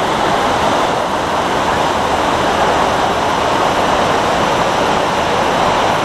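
Waterfall rushing: a loud, steady, even roar of falling water.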